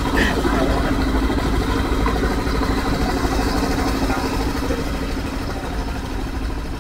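River taxi boat's engine idling steadily: a constant low rumble with a steady hum.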